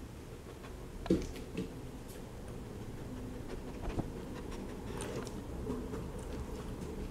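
Weimaraner nosing and sniffing at an empty plastic food bowl, with a few sharp knocks, the loudest about a second in and another about four seconds in.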